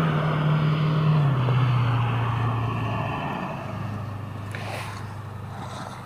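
A motor vehicle's engine running. It comes in abruptly, and its pitch steps down twice as it grows steadily fainter.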